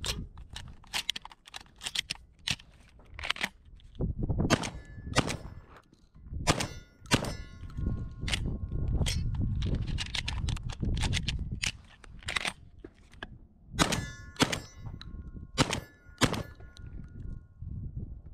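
Benelli M4 semi-automatic 12-gauge shotgun fired in two quick strings of four shots, one about four seconds in and one about fourteen seconds in. Between them come rapid clicks and clacks of shells being pushed four at a time into the magazine tube, with some metallic ringing.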